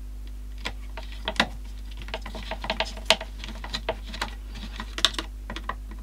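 Hard plastic parts of a Dyson V7 dust bin and cyclone being handled, making irregular light clicks and taps.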